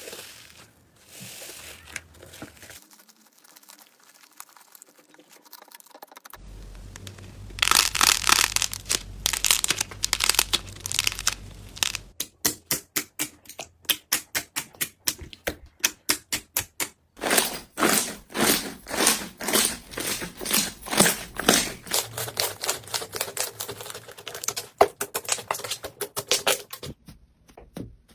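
Slime being squeezed and poked by hand, giving rapid sticky clicks and crackles. It is fairly quiet for the first several seconds, then turns into loud runs of clicks that go on until near the end.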